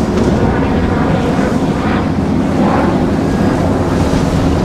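Steady engine drone and rushing water, with wind buffeting the microphone.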